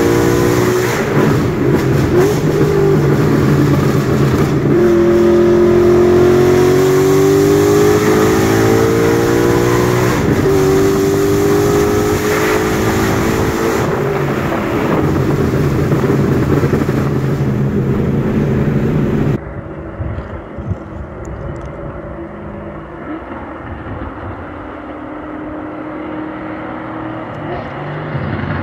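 Ford Mustang GT's 5.0 Coyote V8, with long-tube headers, an X and H pipe and no mufflers or resonators, pulling hard: the pitch climbs several times and drops back at each upshift. About two-thirds of the way in it cuts abruptly to a quieter, duller engine sound at lower revs.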